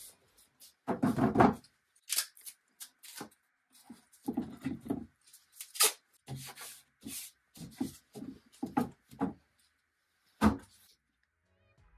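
Wooden dresser drawers being handled and set down: an uneven string of knocks, scrapes and rubs of wood, loudest about a second in, with a single sharp knock near the end.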